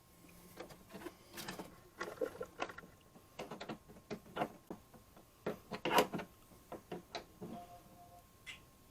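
Irregular clicks and knocks of small hardware being handled and fitted (washers, nuts and a tool on the mounting studs), coming in quick clusters, with the loudest knock about six seconds in.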